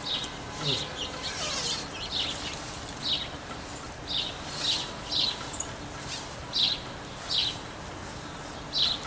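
A small bird chirping over and over, short high chirps coming roughly once or twice a second.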